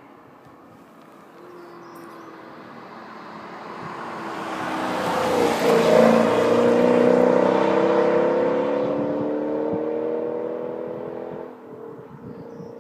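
2012 Dodge Challenger R/T's 5.7-litre Hemi V8 through a Flowmaster catback exhaust, accelerating past. It builds as the car approaches, is loudest about six seconds in with the exhaust note climbing as it pulls away, then drops off sharply near the end.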